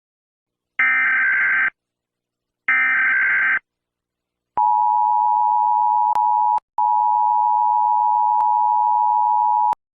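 Emergency Alert System data header: two short bursts of warbling digital tones about a second long, then the steady two-tone attention signal sounding for about five seconds with a brief break in it, signalling the start of a weather warning broadcast.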